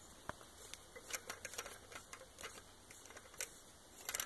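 Faint, irregular light clicks and ticks from a helicoil insertion tool being handled and turned in a threaded bolt hole of an aluminium cylinder head.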